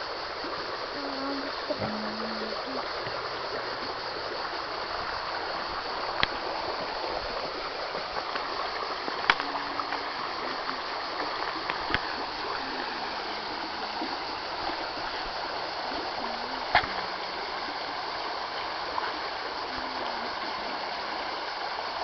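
River water flowing steadily, a continuous rushing babble, with a few sharp clicks through it.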